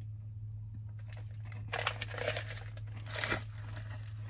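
MRE ration wrapper crinkling as it is handled, in two bursts about two and three seconds in, over a steady low hum.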